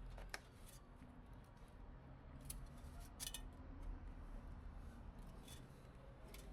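A few faint, sharp clicks from hands handling PC parts, spaced irregularly about a second or more apart, over a low hum.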